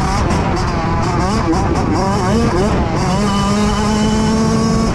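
Kawasaki KX85 two-stroke single-cylinder dirt bike engine running hard, its pitch dipping and climbing between about one and three seconds in, then holding steady at high revs. Heavy wind rumble on the helmet microphone.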